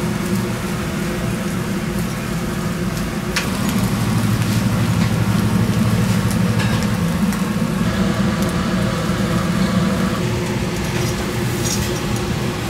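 Fish sizzling on a coal-briquette grill over a steady low mechanical hum, with a few light clicks.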